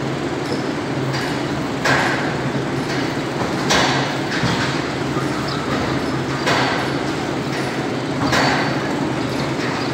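A steady mechanical drone with four sharp knocks, roughly two seconds apart.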